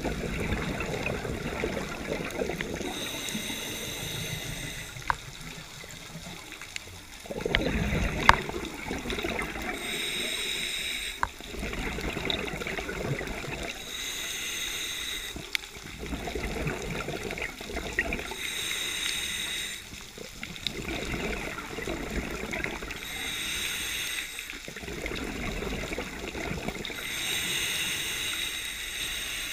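Scuba diver breathing through a regulator underwater: a high hiss on each inhale alternating with a burst of bubbles on each exhale, about one breath every four to five seconds. A few sharp clicks, the loudest about eight seconds in.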